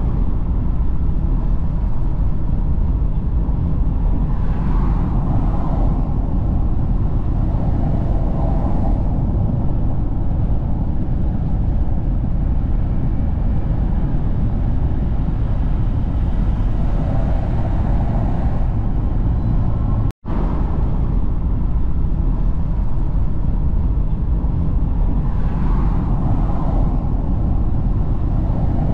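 Steady road and wind noise inside a car cabin at motorway speed, mostly a low tyre rumble, with a few brief swells. The sound cuts out for an instant about twenty seconds in.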